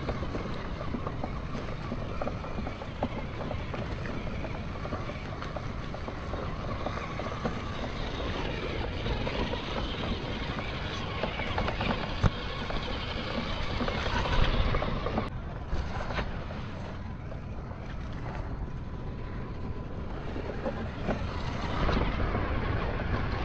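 Small 1/18-scale RC rock crawler's electric motor and drivetrain running as it drives over stones and gravel, with many small crunches and clicks from the tyres. It surges louder about fourteen seconds in, then sounds duller for a few seconds.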